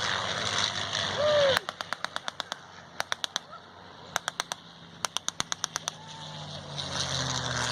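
.50-caliber machine gun firing four bursts at about ten rounds a second, the first and last burst about a second long and the middle two shorter. A heavy vehicle engine runs underneath before the firing and again near the end.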